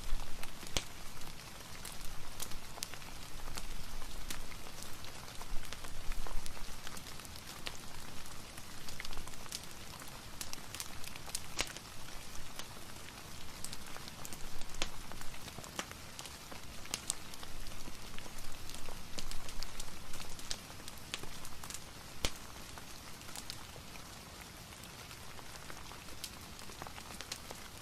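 Soft rain falling steadily, mixed with a fireplace fire crackling, with scattered sharp pops and ticks throughout. The sound eases a little in the last few seconds.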